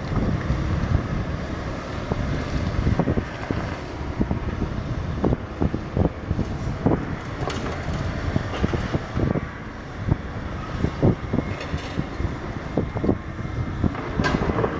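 Kobelco 220 hydraulic excavator running under load, its engine a steady low drone, with irregular knocks and scrapes from the bucket digging into earth and rock while cutting a slope.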